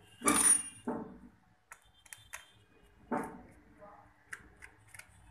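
A few short vocal sounds from the man working, with light sharp clicks scattered through the middle and end as he handles the laptop's plastic parts and connectors on the open motherboard.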